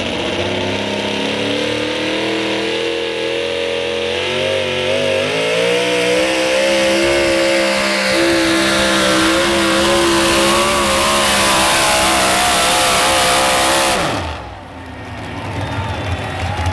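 Modified 4x4 pulling truck's V8 with open headers running flat out under load as it drags the weight-transfer sled, its pitch climbing for several seconds and then holding high. The sound cuts off sharply about fourteen seconds in, and a lower engine idle follows.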